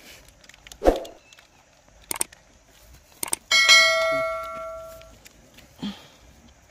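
Subscribe-button sound effect: a click, then a bell ding that rings out and fades over about a second and a half. A dull thump comes about a second in, before it.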